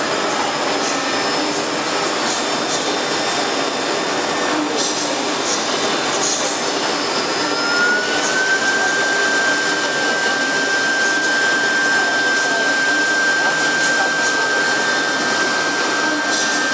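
Double-head CNC router with air-cooled spindles running steadily while routing a board. A high whine rises a little in pitch about seven seconds in and then holds steady.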